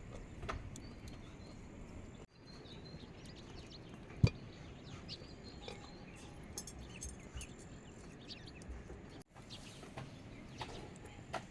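Birds chirping in short high calls over a steady background hiss, with one sharp knock about four seconds in.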